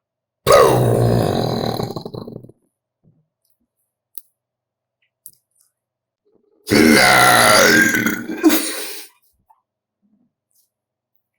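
Two long, loud burps, each about two seconds: one half a second in and another about seven seconds in, the second wavering in pitch as it goes.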